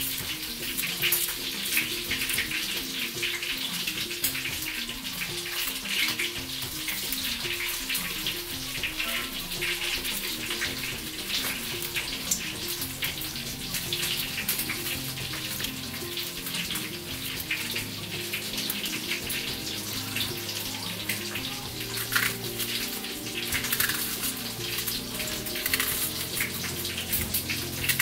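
Water running and splashing steadily in a stainless steel kitchen sink, over background music playing a repeating melody.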